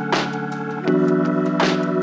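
Background music: held organ-like chords that change about a second in, with a swelling whoosh twice.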